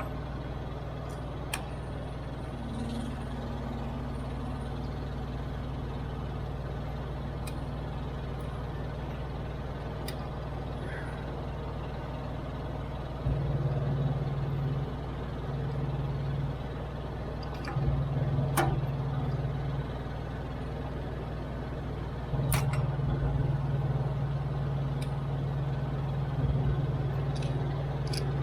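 Steady low hum of an idling truck engine, growing louder for a few seconds at a time in the second half, with scattered sharp metallic clicks of wrenches on the APU belt tensioner bolts.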